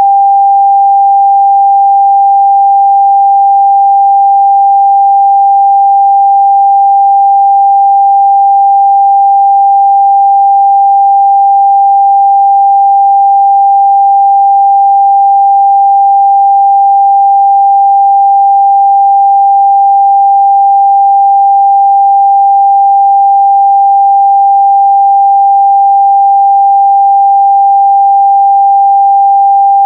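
A steady 794 Hz pure sine-wave test tone, one unbroken pitch held at a constant level.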